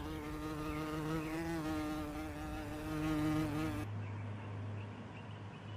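A flying insect buzzing steadily, its pitch wavering slightly as it moves about. The buzz stops suddenly about four seconds in, leaving a faint low hum.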